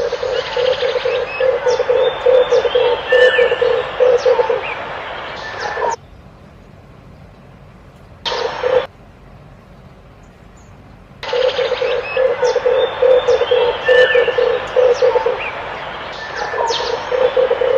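Red turtle dove cooing: a low, rapidly pulsing coo in phrases of about four seconds, with a quiet gap of about five seconds midway broken by one short call. Smaller birds chirp throughout.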